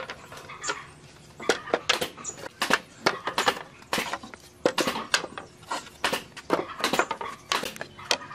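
An irregular run of sharp knocks and taps on wood, several a second, from hand work on timber.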